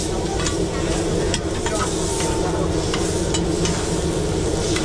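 Food sizzling at a street-food stall, a steady hiss with scattered light clicks of cooking utensils.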